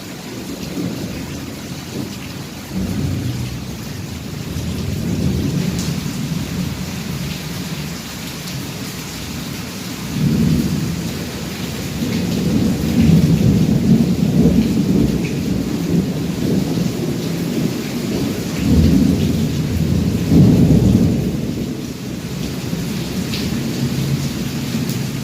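Heavy rain falling steadily while thunder rumbles again and again. The deep rolls swell and fade, and are loudest in the second half.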